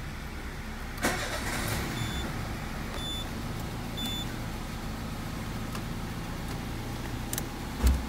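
Peugeot 206 engine started with the key about a second in, then idling steadily. Three short electronic beeps from the dashboard come about a second apart, and there is a sharp thump near the end.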